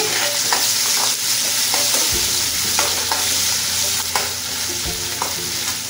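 Onion and ginger-garlic paste sizzling in hot oil in a kadhai while being stirred, the spoon clicking and scraping against the pan at irregular moments.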